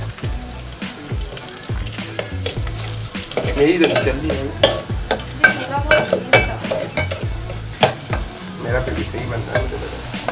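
Chicken pieces with tikka masala frying and sizzling in oil in a steel pot, stirred by a metal spoon that scrapes and clicks against the pot again and again.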